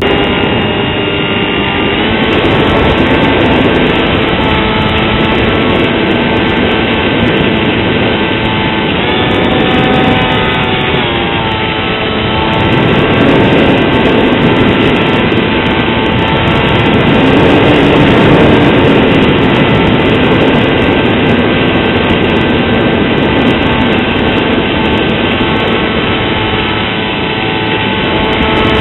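Motor and propeller of a Depron foam RC UAV, heard from a camera on board the plane in flight: a loud, steady whine with a rush of air. The pitch rises briefly about a third of the way in, then settles back as the throttle changes.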